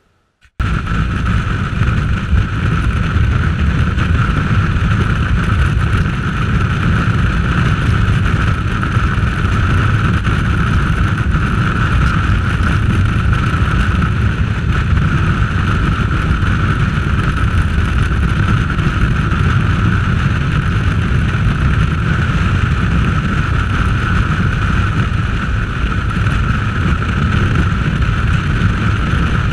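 Steady wind noise on an action camera's microphone, mixed with the motorcycle's engine and road noise, while riding at steady highway speed. It cuts in suddenly about half a second in.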